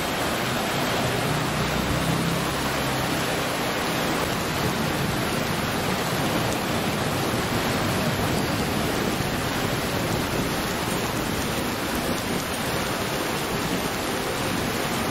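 Steady rushing of a swollen, fast-flowing river in flood, its water churning and swirling around bridge pillars after heavy rain.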